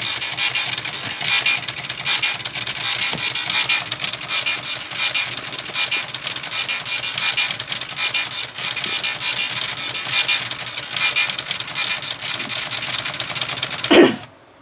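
Epson TM-U220PD impact dot-matrix receipt printer printing: a dense, rapid rasp from the print head in pulsing runs, line after line. There is a short louder whir just before the end, then it stops abruptly. The printer only prints after being switched off and on, because of its red-light error fault.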